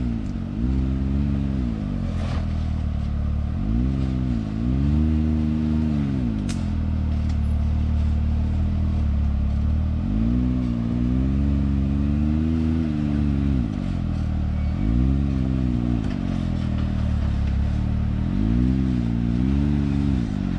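Side-by-side UTV engine crawling over rocks, its revs rising and falling in about five throttle bursts over a steady low engine note, with a couple of sharp clicks in the first seven seconds.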